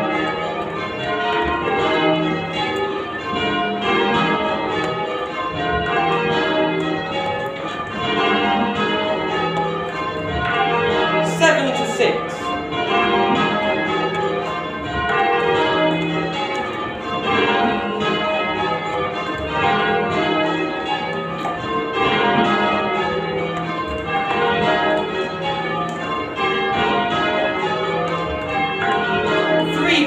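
Church bells being change-rung in a tower, heard from the ringing chamber below: a continuous, even run of overlapping bell strikes, one bell after another.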